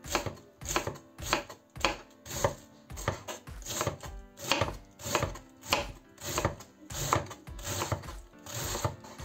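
Kitchen knife shredding a head of young cabbage on a wooden cutting board, in steady, even cutting strokes a little under two a second.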